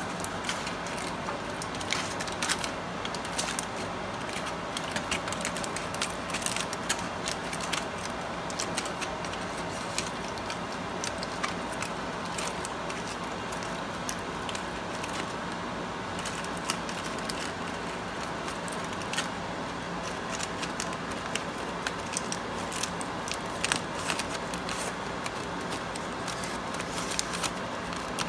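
Crumpled aluminium foil crinkling and crackling in irregular bursts as hands pinch and unfold the edges of a foil packet, over a steady background hum.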